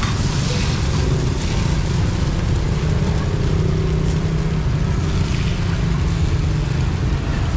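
Steady low rumble of motor vehicle traffic, with an engine hum standing out briefly in the middle.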